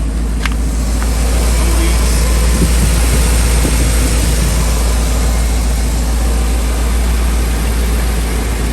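2003 Ford F-350 pickup under way: a steady low engine and road rumble with an even hiss of tyre and wind noise.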